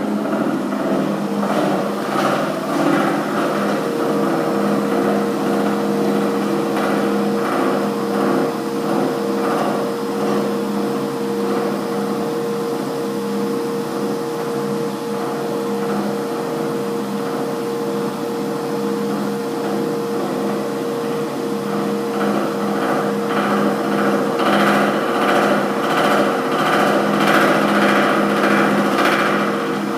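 Motorised treadmill running at a running speed with no one on the belt: a steady motor hum with a repeated knocking that comes and goes, strongest near the end. The knocking is a fault, intermittent and not acceptable for a treadmill about a year old.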